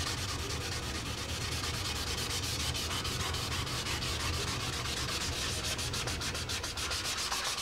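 Fine-grit sandpaper (320–400) rubbed by hand in quick back-and-forth strokes over the clear coat of a painted motorcycle fairing, a steady dry scratching. The clear coat over a decal edge is being scuffed rough and levelled so the edge can no longer be felt.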